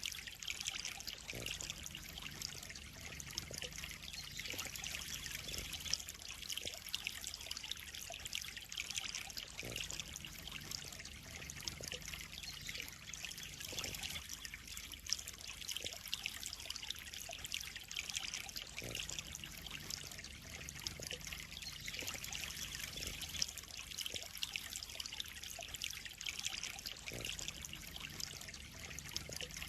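Water trickling and splashing steadily into a koi pond, an even, unbroken running-water sound.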